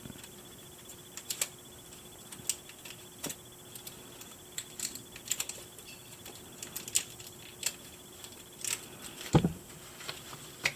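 Plastic doll packaging being handled and cut free: irregular light clicks and ticks, with a duller knock about nine and a half seconds in.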